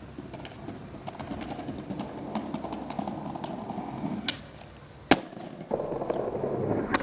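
Skateboard sounds: scattered clicks and knocks over a low rumble, with a single sharp crack about five seconds in, followed by a steadier rumble and another crack near the end.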